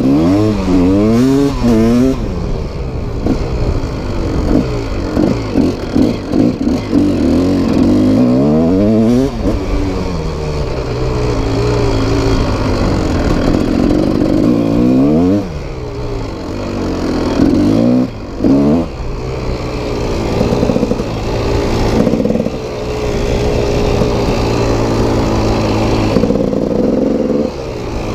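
Dirt bike engine being ridden off-road, its pitch rising and falling again and again as the throttle is opened and closed, with a few sharp drops when the throttle is shut in the second half.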